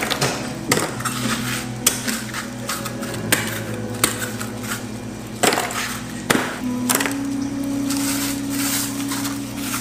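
A knife cracking through brittle honeycomb toffee, with sharp crunching snaps about once a second that stop about seven seconds in. Soft background music plays under them.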